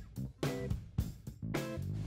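Background music: guitar chords over a beat with sharp percussive hits.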